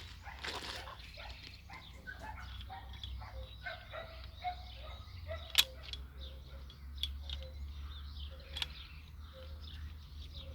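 Birds chirping in short scattered calls over a steady low hum, with a few sharp clicks, the loudest about five and a half seconds in.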